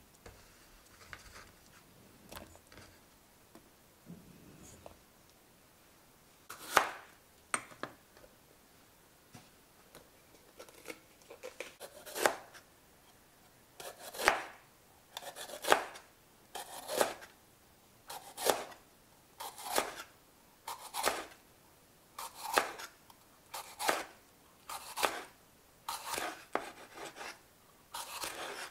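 Kitchen knife slicing a green bell pepper into strips on a wooden cutting board: a crisp knock of the blade on the board with each cut. The cuts begin about seven seconds in and settle into a steady rhythm of roughly one every second and a quarter.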